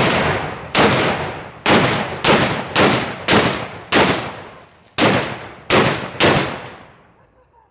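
.50 BMG rifle firing a rapid string of about ten heavy shots, roughly half a second to a second apart, each with a long ringing tail. The shooting stops about six seconds in and the last shot fades away.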